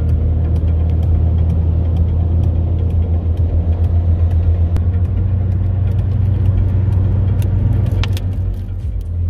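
Steady low rumble of a car travelling at highway speed, heard from inside the cabin while driving alongside a tractor-trailer.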